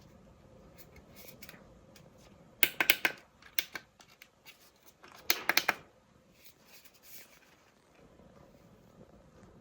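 Handling noise: two short bursts of sharp clicks and crackles, about two and a half seconds apart, with a few fainter taps between, as the boxed sound machine and its packaging are handled.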